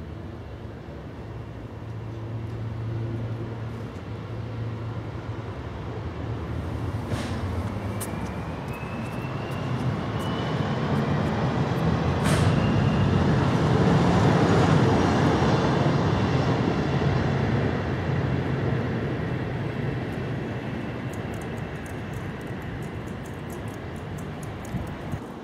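Street traffic: a passing vehicle swells slowly to its loudest a little past halfway, then fades away.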